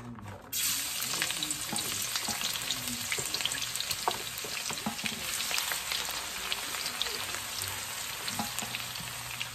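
Minced garlic dropped into hot vegetable oil in a wok: it starts sizzling suddenly about half a second in and goes on frying steadily with small crackles as a wooden spatula stirs it, the garlic being browned a little to bring out its aroma.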